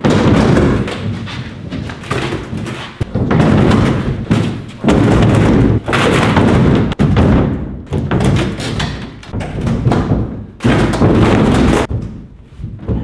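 Plywood deck sheet being pushed and dropped into an aluminum jon boat, thudding and scraping against the hull in a series of loud, irregular knocks. The board is rubbing on one side of the hull and still needs trimming to sit down.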